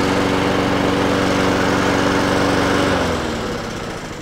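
Honda walk-behind lawn mower's single-cylinder four-stroke engine running at a steady speed to warm up the old oil so it drains more freely. About three seconds in it slows and dies away, its pitch and level falling.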